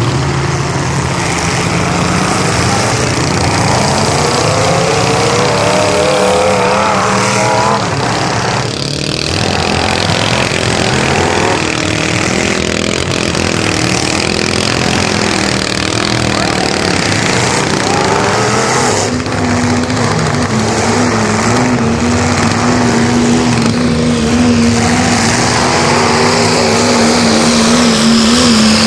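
Diesel pickup truck's engine revving hard and running at full throttle under load as it pulls a weight-transfer sled across dirt. From about two-thirds of the way through, the engine holds one steady high note.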